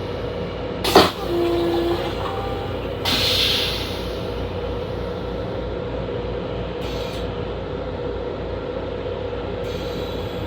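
Interior running noise of a Long Island Rail Road M7 electric railcar: a steady rumble and hiss with a constant hum. About a second in there is a sharp click followed by a brief low beep, and around three seconds in a short burst of hiss.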